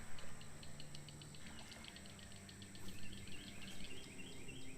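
Birds chirping in quick runs of short, high, upward-sweeping notes, over a steady high-pitched whine.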